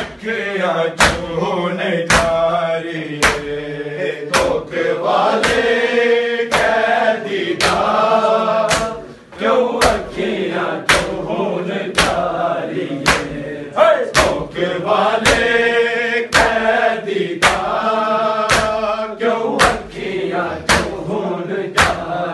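Men chanting a Punjabi noha (Shia lament) in chorus. Bare-handed chest-beating (matam) from the whole group lands together as sharp slaps about once a second, keeping the beat of the lament.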